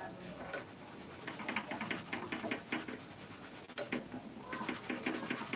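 Sun-dried cooked rice crackling in hot oil as it puffs, held in a wire-mesh strainer in a small wok: quick irregular pops in clusters, with one sharper click partway through.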